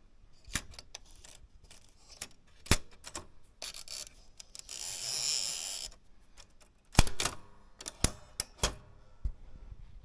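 Erika 105 portable typewriter being worked by hand: scattered sharp mechanical clicks, a sliding rush lasting about a second and a half near the middle, then a quick run of loud clicks and clacks.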